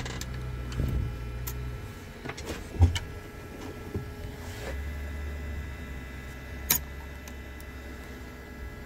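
Metal clicks and knocks as a key is set and tightened in the clamp of an Xhorse key-cutting machine, with a sharp click near three seconds and another near seven. Under them runs a low steady hum that drops out after about two seconds and returns near five seconds.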